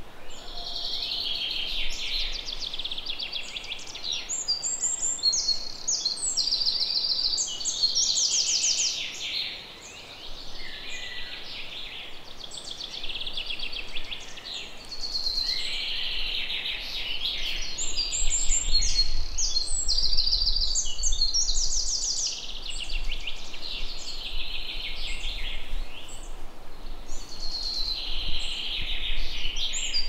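Songbirds singing, a continuous chorus of overlapping phrases made of quick high trills and notes, with a faint low rumble underneath in the second half.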